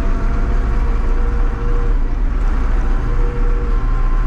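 SAME Silver 100.4 tractor's four-cylinder diesel engine running steadily as the tractor drives in its top gear, heard from inside the cab. A low, even drone carries a few faint whining tones above it.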